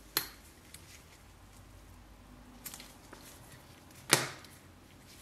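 Handling noises from a small metal steering-column sleeve turned over in gloved hands: a sharp click just after the start, a few faint ticks, and a louder knock about four seconds in.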